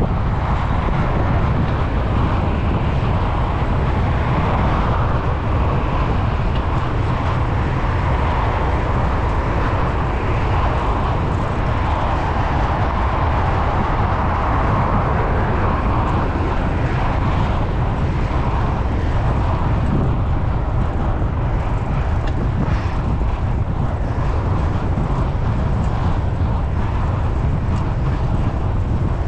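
Wind rushing over an action camera's microphone on a moving road bike, with the tyres rolling on asphalt: a loud, steady rush that does not let up.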